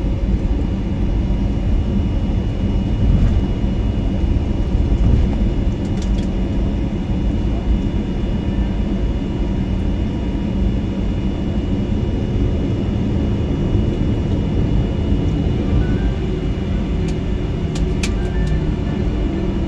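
Cabin noise of a Boeing 737-800 taxiing after landing: a steady low rumble from its CFM56-7B engines at taxi power with a faint steady high whine, and a few light clicks.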